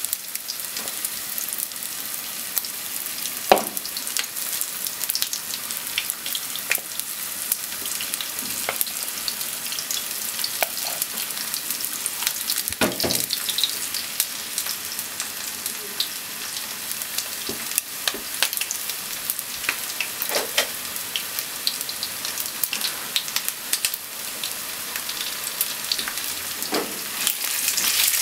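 Potato-starch-coated chicken pieces sizzling and crackling in hot oil in a nonstick frying pan, with a few sharp clicks along the way; the frying gets louder near the end.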